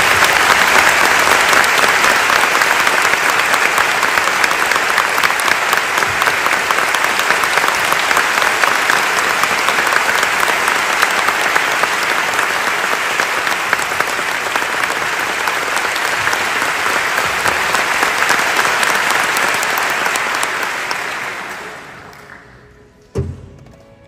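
Audience applauding, a dense steady clapping that goes on for about twenty seconds, then dies away. A single knock follows near the end.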